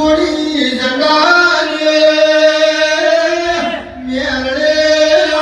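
A single voice singing a devotional chant in long, held notes. The phrase breaks briefly about four seconds in, then the singing resumes.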